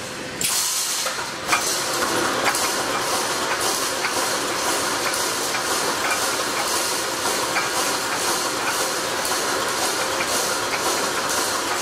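Automatic wire mesh panel welding machine running: a steady hiss with a regular clacking rhythm as the welded mesh panel is fed forward.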